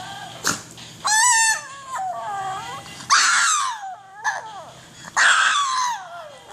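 Yorkshire terrier howling to a song: three high, wavering howls that slide down in pitch, about two seconds apart, the last one the longest.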